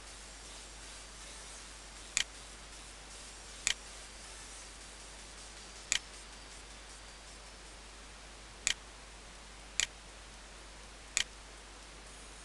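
Six sharp computer mouse clicks, spaced irregularly one to three seconds apart, over a steady hiss.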